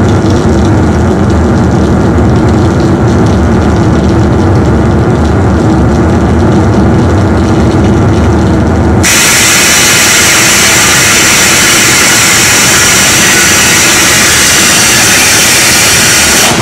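Loud, unbroken harsh noise from a pedalboard of guitar effects: a dense, low-heavy wall that about nine seconds in switches abruptly to a bright, hissing wall. It cuts off at the end.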